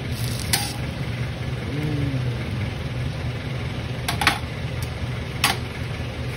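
A steady low machine hum runs throughout. Over it come a few sharp metallic clicks of a steel spatula on a flat-top griddle: one about half a second in, a quick pair just after four seconds and one more at about five and a half seconds.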